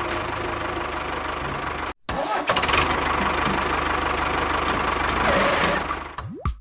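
An engine running steadily. It cuts out abruptly about two seconds in, resumes, and fades out near the end.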